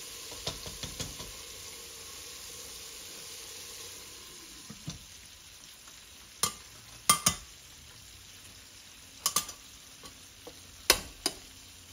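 Squirrel pieces sizzling as they fry in hot oil in an aluminium can cooker, with a wooden spoon stirring and tapping in the pot. About four seconds in the sizzle goes duller as the lid goes on, and then come several sharp metal clicks, mostly in pairs, as the lid's wire latches snap shut.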